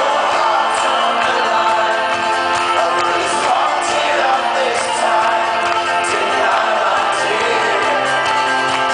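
Live folk-rock band playing and singing, with acoustic guitar, banjo, double bass and keyboard, heard from within the crowd in a large hall.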